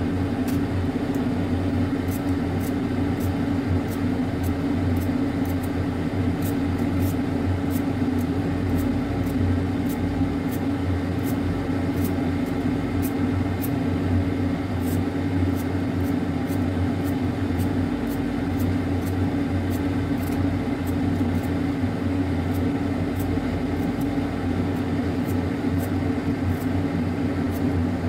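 A steady, loud mechanical hum with a low drone, overlaid by faint quick high ticks about twice a second.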